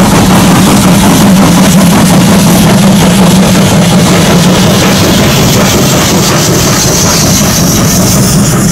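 Norfolk & Western 4-8-0 steam locomotive No. 475 working hard as it passes close by, a loud, steady, dense rumble. Its low part eases near the end as the passenger coaches roll by.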